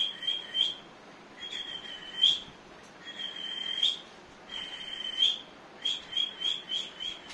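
A man imitating a small bird's call by mouth, with high whistled chirps. Quick runs of four or five short notes open and close it, and three longer drawn-out whistles come in between.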